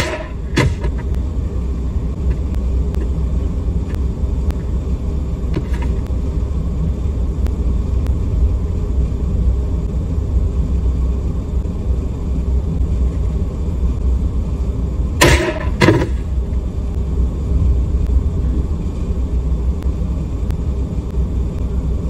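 Pistol shots over a low, steady rumble: one sharp crack right at the start and another just after, a faint one about six seconds in, then two more about half a second apart around fifteen seconds in, the loudest of them.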